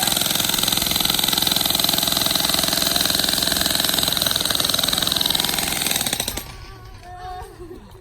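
Jackhammer pounding rapidly and steadily, breaking up rock, then stopping about six seconds in.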